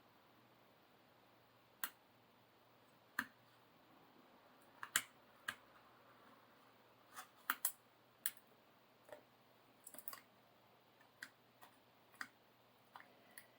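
Faint, scattered small sharp clicks and taps, about twenty at uneven intervals, from tools working a clamped HP-41 memory module's connector loose during desoldering.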